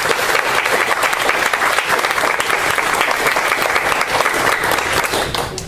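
Small audience applauding, a dense patter of hand claps that dies away near the end.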